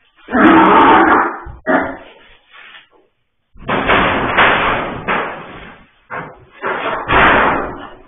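Loud, rough animal calls in bursts: a long call in the first second or so, a short one just before two seconds, then a longer run of calls from about three and a half seconds on.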